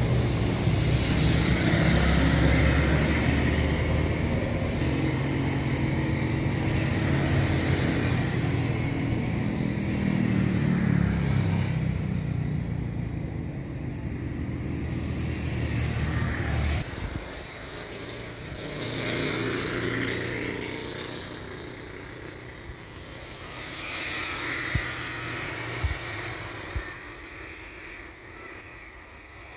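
An engine runs with a steady low hum and cuts off abruptly about 17 seconds in. After that, fainter engine noise swells and fades twice, with a couple of sharp clicks.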